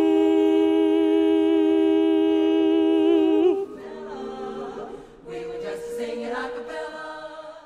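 Women's barbershop chorus singing a cappella in four-part harmony, holding one long, steady chord that is released about three and a half seconds in. Softer singing follows, and a new chord comes in about five seconds in and fades out at the end.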